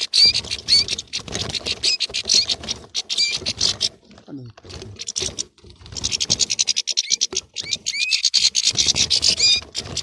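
European goldfinches chattering and squabbling in a flock: rapid, dense high twitters and chirps. The calling drops off briefly about four seconds in, then resumes thickly about two seconds later.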